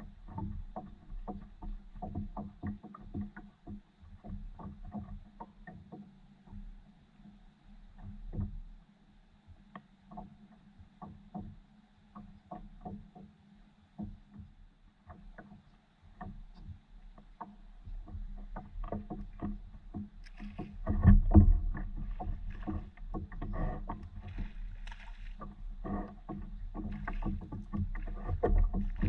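Small water lapping and slapping against the hull of a fishing paddle board, heard as many short knocks over a low rumble. It grows busier and louder in the last third, with a loud thump about 21 seconds in.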